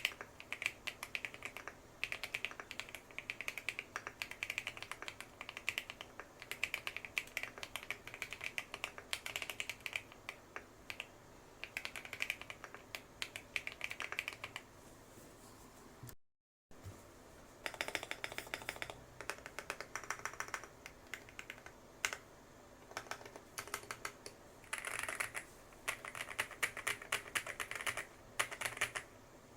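Typing on a custom 65% mechanical keyboard with tape-modded PCB and PBT Cherry-profile keycaps: a steady run of rapid key clacks, broken by a half-second dropout just past halfway, then resuming in quicker bursts.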